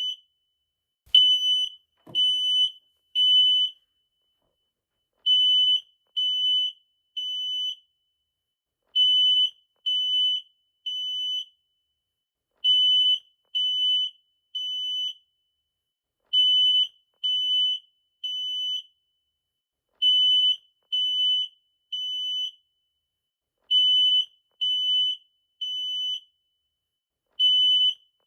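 Smoke detector alarm sounding a loud, high-pitched beep in groups of three, about half a second each, with a pause of about a second and a half between groups. This is the temporal-three pattern that signals a fire evacuation.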